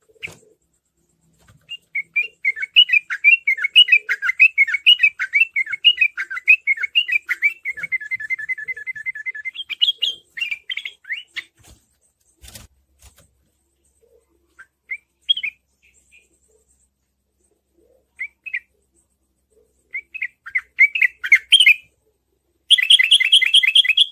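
Yellow-vented bulbul (trucukan) singing quick chattering phrases, with a fast, even rolling trill (the 'ropel') about eight seconds in and again, loudly, near the end. Between these come scattered short calls.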